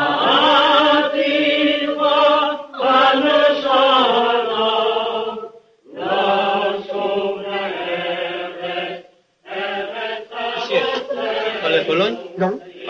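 A group of voices chanting in long held phrases, breaking off briefly between them, with the last phrase more broken up.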